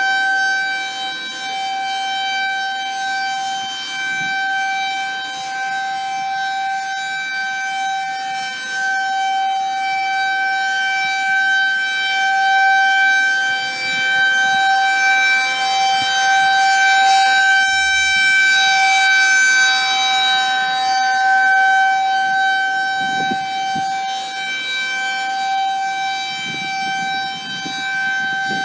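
Federal Signal 2001 rotating tornado siren sounding its steady single-pitch alert tone for a scheduled test, its loudness swelling and fading every few seconds as the horn turns.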